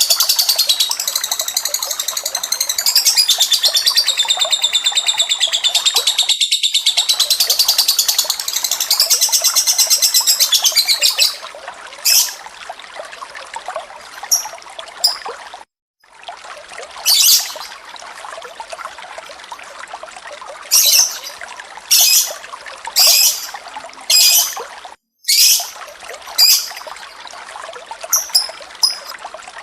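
Recorded lovebird and cililin song: about eleven seconds of dense, rapid high chattering, then a stream of running water with short high chirps breaking in every second or two. The sound cuts out to silence twice, briefly, in the second half.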